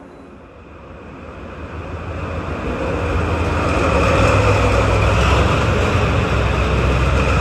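DD51 twin-engine diesel-hydraulic locomotive approaching at close range. Its low engine rumble and running noise grow steadily louder over the first four seconds, then hold steady as it draws alongside.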